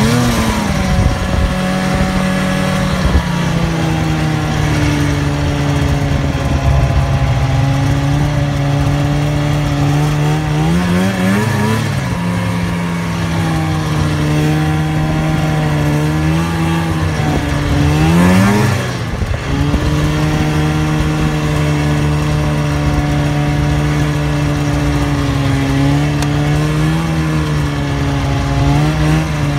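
Snowmobile engine running steadily under way, with the revs briefly rising and falling twice, about a third and about two-thirds of the way through.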